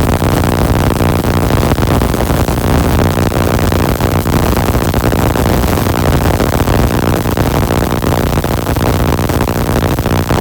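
Spark-gap Tesla coil running with an air-blast spark gap: a loud, continuous buzzing crackle of sparks over a steady mains-frequency hum.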